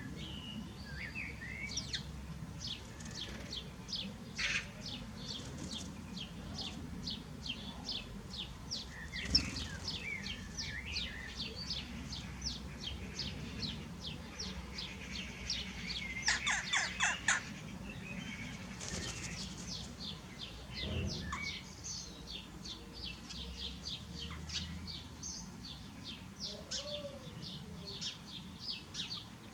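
Small birds chirping, with short high chirps repeating a few times a second throughout. A single sharp knock comes about nine seconds in, and a louder quick run of sharp notes about sixteen seconds in.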